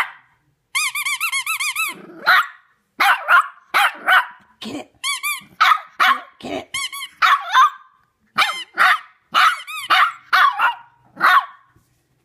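A rubber squeaky toy squeezed in a quick run of squeaks about a second in, then now and again afterwards. A Shih Tzu puppy answers it with many short, high-pitched barks.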